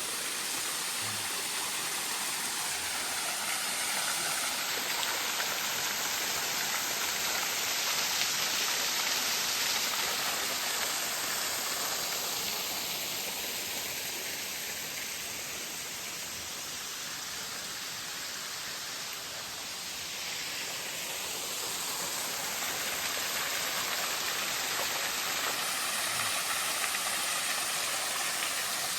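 Khlong Chao waterfall falling into its pool, a steady rush of water. It is the dry season, so the flow is low.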